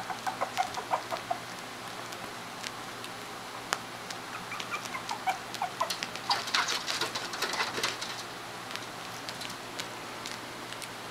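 Four-week-old puppies whimpering and yipping in short, high calls, in quick runs near the start and again around the middle, with a patch of sharp clicking and scuffling about six to eight seconds in.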